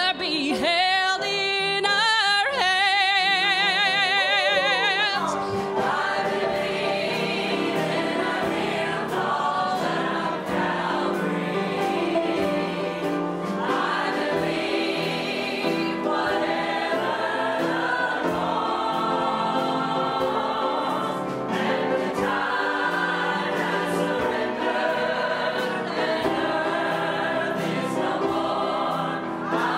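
Church choir singing a gospel song. It opens with a held note sung with wide vibrato, and the full choir comes in about five seconds in.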